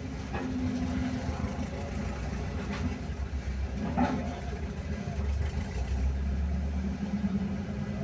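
Heavy engine running steadily at low speed, with a few light knocks, the clearest about halfway through.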